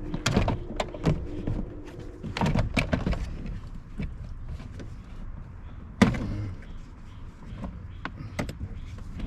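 Scattered plastic clicks and knocks from a car's interior door trim being handled and pried while the power window master switch is taken out, with one sharp knock about six seconds in.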